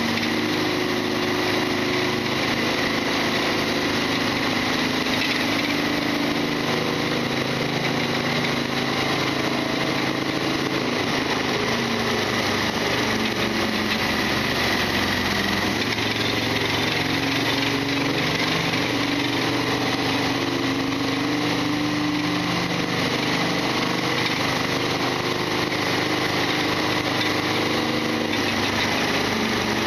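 Modified Harley-Davidson XL1200R Sportster's air-cooled V-twin running steadily under way, its pitch shifting a little now and then. Through it runs the loud clattering mechanical noise the owner calls rattling ('gatapishi') and a big abnormal noise from the engine.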